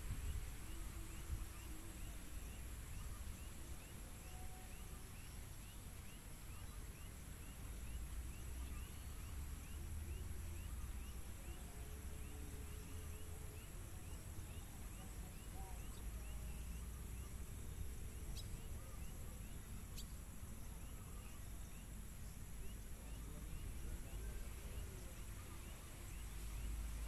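Faint background ambience: a low rumble with a soft, regular high ticking about twice a second; no canary song.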